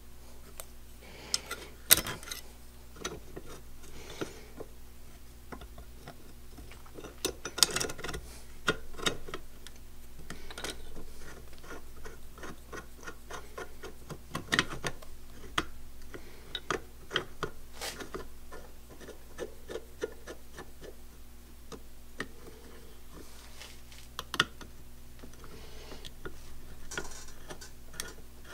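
Hand work on the metal parts of a super spacer with a T-handle tool: a run of small, irregular metallic clicks and ticks, with a handful of sharper clicks several seconds apart.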